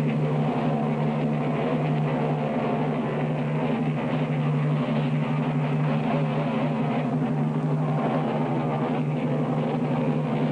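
Background rock music with drums and guitar over a steady held bass note.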